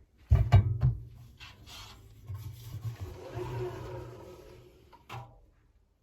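A cluster of loud knocks and thumps in the first second, then a rough scraping noise lasting a few seconds, and one more knock near the end.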